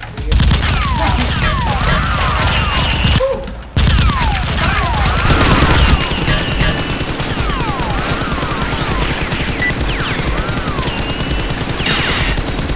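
Rapid automatic gunfire sound effects dubbed over toy-blaster firing, with falling and arching whistles mixed in among the shots. The fire breaks off briefly about three and a half seconds in, then resumes.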